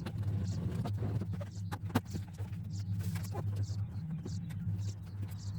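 Foil-backed Kilmat sound-deadening mat being handled and trimmed: crinkling, light taps and scattered sharp clicks, a louder one about two seconds in and another at the end, over a steady low hum.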